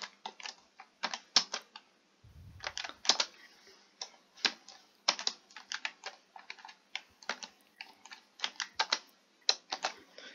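Computer keyboard being typed on: a quick, uneven run of keystrokes with short pauses between bursts.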